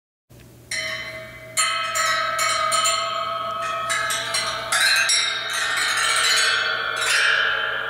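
Metal percussion instrument struck over and over, each stroke ringing on in bright, bell-like tones that overlap into an eerie wash, with one lower note holding steady underneath.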